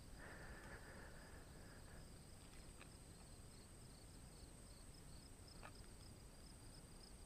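Near silence, with faint crickets chirping in a quick pulsing rhythm over a steady high whine. A faint steady tone sounds in the first two seconds, and two soft clicks come later.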